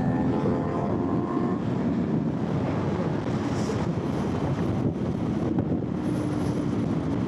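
Motorcycle engine running at road speed under heavy wind rush on the rider's microphone. A steady engine tone comes through the wind, a lower one from about six seconds in.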